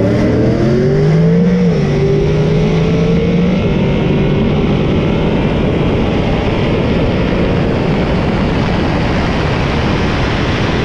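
A 2013 Chevrolet Camaro launching at full throttle in a drag race against a Mustang, its engine revving up. The pitch climbs, drops at a gear change about two seconds in, then climbs again under a loud, steady rush of engine and wind noise.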